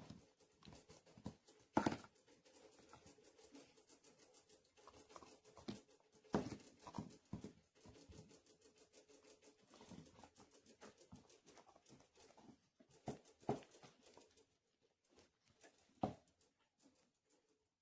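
A dog gnawing on a hard nylon chew bone: irregular faint clicks, knocks and scrapes of teeth on the nylon, with a few louder knocks.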